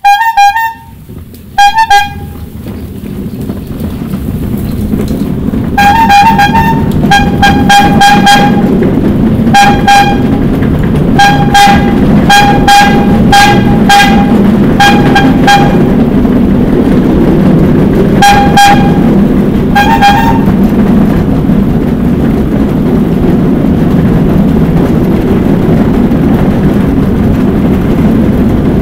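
A rail bike's horn tooting two short blasts, then about a dozen short toots between roughly six and twenty seconds in, over the steady rumble of the rail bike running along the track. The rumble builds over the first few seconds as it gets under way and echoes inside a rock tunnel.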